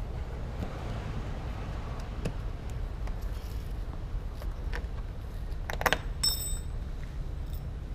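Small metal hardware clicking and clinking as a bumper quick-release fastener is fitted, with a cluster of louder clicks and a brief bright metallic ring about six seconds in, over a low steady rumble.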